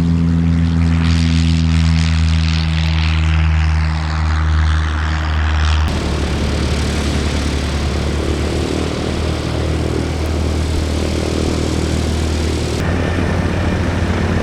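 Light aircraft propeller engine running steadily, with a falling swish in the upper range during the first few seconds. The sound changes abruptly about six seconds in and again near the end, as different engine noise takes over.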